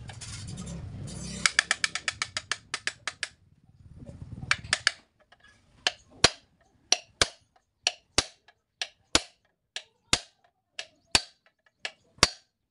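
Sharp hammer blows on a steel rivet punch, setting the rivets that fasten new lining to a truck brake shoe: a quick run of about ten taps, then slower single blows about one a second.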